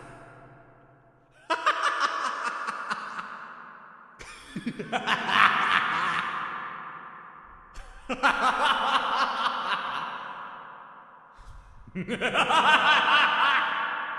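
Human laughter in four separate bursts a few seconds apart, each trailing off in a long echo.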